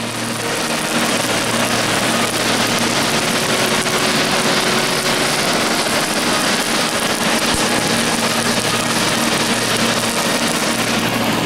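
Forge fire under forced air from a blower: a steady rush of air through the burning fuel, with a low motor hum underneath.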